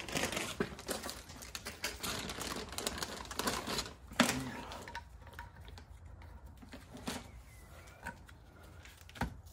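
Irregular light clicks and taps of small hard parts being handled at an alloy wheel's centre bore while hub-centring rings are tried for fit. The clicks are busiest in the first few seconds, with one sharp click about four seconds in, and grow sparser after that.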